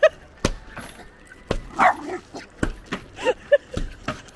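Small dog barking and yipping excitedly, over sharp knocks of an axe striking a log about once a second.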